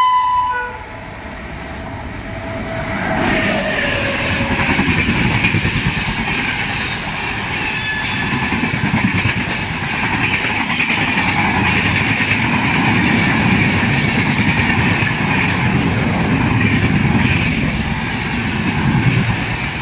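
A locomotive horn cuts off about half a second in. Then an Indian Railways express train's coaches run past close by, a loud, steady rush with wheels clattering over the rails.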